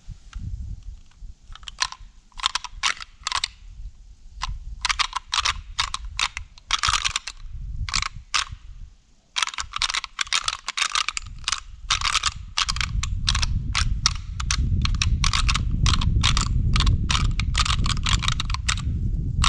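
Rattling antlers knocked and clicked together, first in short scattered groups, then in a quick, steady run of several clicks a second with a low grinding rumble underneath from about halfway. It is antler rattling to imitate two bucks sparring and call in a buck.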